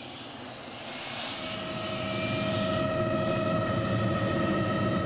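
Bell 206 JetRanger helicopter's turbine engine spooling up: a high whine rising slowly in pitch, with steady engine tones coming in about a second in and the sound growing louder.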